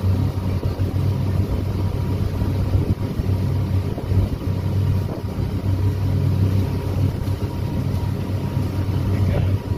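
Ferry boat's engine running steadily under way, a low drone, with water rushing past the hull.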